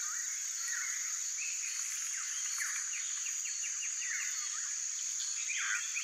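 Tropical forest animal chorus: a steady high-pitched drone under many short, mostly falling calls. A quick run of about six notes comes near the middle, and a louder call comes near the end.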